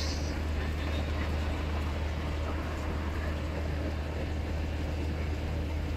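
Steady low drone of a bus engine with road and tyre noise, heard from inside the cabin of a bus moving along the highway.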